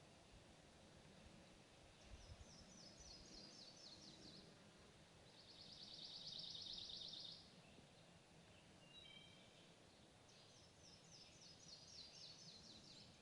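Sparrow chirping faintly in several short phrases of quick high notes, with a louder rapid trill about five seconds in, over a faint background hiss.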